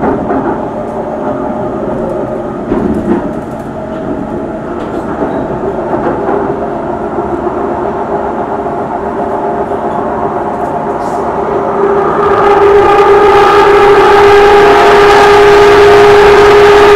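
MRT metro train running on its track, heard from inside the carriage: a steady rumble and rush of wheels on rail. About twelve seconds in it grows louder and a steady whine of several tones rises above the rumble.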